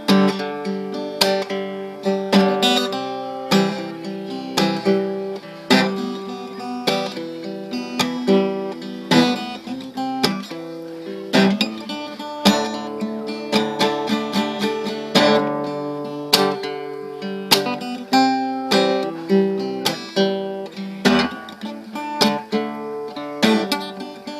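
Acoustic guitar music: a continuous run of strummed chords and picked notes in a steady rhythm.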